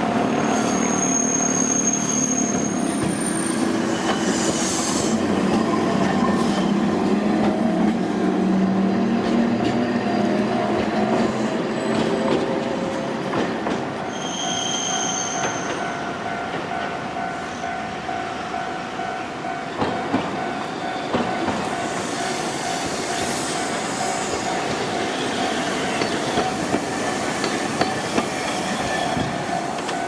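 Hankai Tramway trams crossing a level crossing: the wheels squeal and clatter over the rails, with a low rumble as a tram goes by. Behind them the level crossing's warning bell rings steadily.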